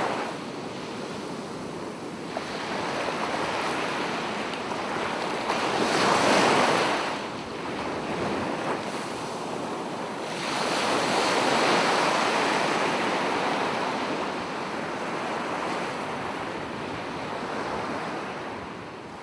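Ocean waves breaking on a beach, the surf swelling and easing, with two louder breakers: one about six seconds in and a longer one about ten seconds in. Some wind on the microphone.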